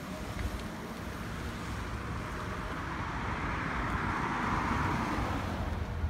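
A van driving past: tyre and road noise swelling to a peak about four to five seconds in, then fading. Wind rumbles on the microphone throughout.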